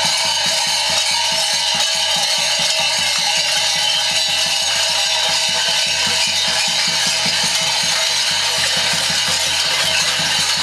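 Many large mummers' bells clanging together in a fast, even rhythm over a continuous ringing din.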